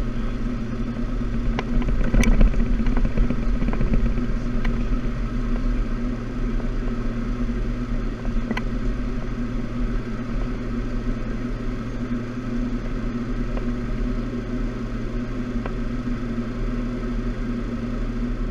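Steady cockpit drone of a Cessna Citation X business jet in flight: engine and airflow noise heard inside the cockpit, with a few light clicks and rattles, a cluster of them about two seconds in.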